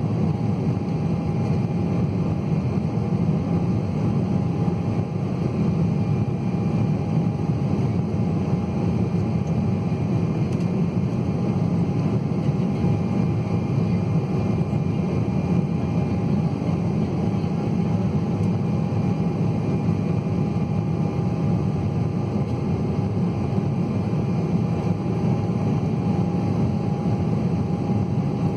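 Cabin noise of an Embraer 190 airliner climbing after takeoff: the steady drone of its GE CF34-10E turbofan engines and the rush of air past the fuselage, with a faint steady high whine on top.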